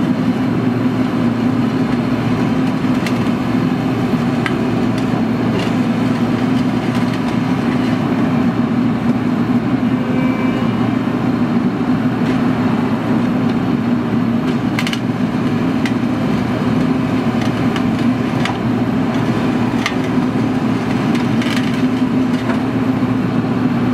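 Python pothole patching machine running steadily, its engine and hydraulics making a constant drone, with scattered cracks and crunches of asphalt and grit under the front-mounted patching head.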